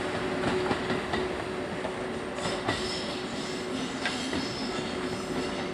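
A short freight train, an EF81 electric locomotive hauling one Kiya 143 railcar, rolling past over the rails: a steady rumble of wheels with scattered sharp clicks from the rail joints and a faint steady whine, slowly fading as it moves away.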